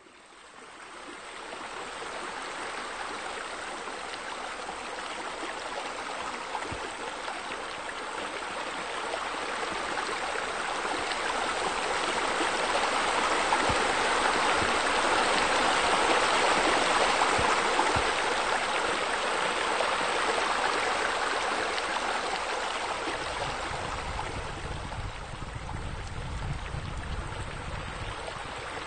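Steady rushing, splashing water, as of pool water features pouring into the pool. It grows louder through the middle and eases off again, with a low rumble coming in near the end.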